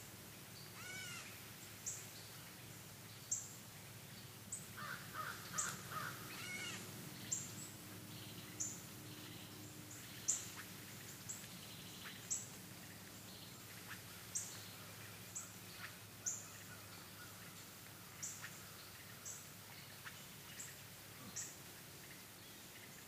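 Wild birds calling: a short, high-pitched note repeated about once a second, with a few lower calls whose pitch arches up and down in the first seven seconds.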